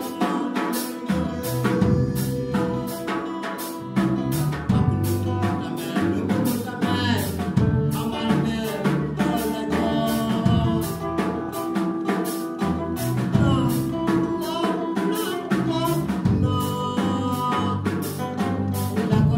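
Live band playing at a steady beat on drum kit, bass and electric guitar, with a man singing into a microphone at times.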